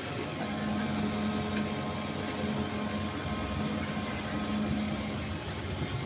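Beverage display fridge's compressor running with a steady low hum, the system cooling again after its refrigerant recharge.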